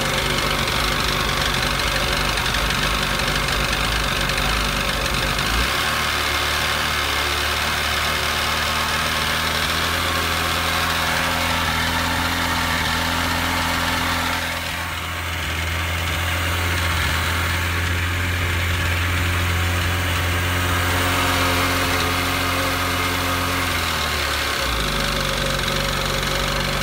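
Jet ski engine idling steadily in the water, running on a newly replaced exhaust manifold during a leak check. Its note shifts about six seconds in and changes back near the end.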